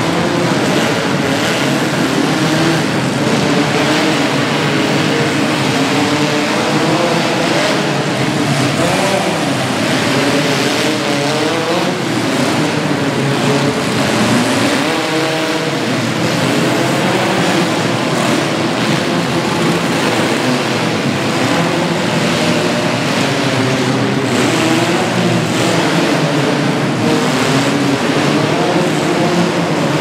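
Several demolition-derby compact cars' engines running and revving at once, loud and steady, with their pitches rising and falling and overlapping.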